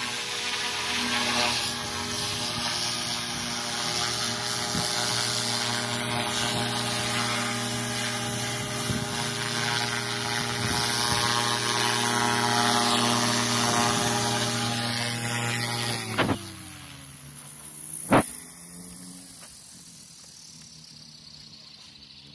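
Goblin 380 electric RC helicopter hovering, its motor and rotors giving a steady pitched whine. About sixteen seconds in the power is cut and the whine falls in pitch as the rotor spools down. A sharp click comes at the cut and a louder sharp knock about two seconds later.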